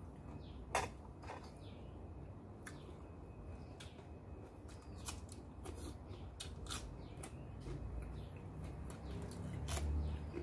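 Eating at a table: scattered small clicks and taps of a spoon against plates and food being handled and chewed, with one sharper click about a second in, over a low steady background rumble.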